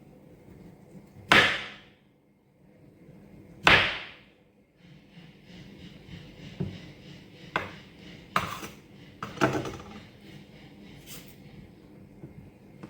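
Kitchen items knocked down on a counter: two loud, sharp knocks in the first few seconds, each ringing briefly, then several lighter knocks and clicks.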